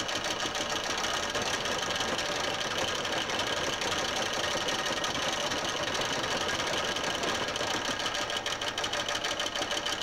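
Pile hammer driving steel sheet piling: a rapid, steady mechanical clatter of fast repeated blows.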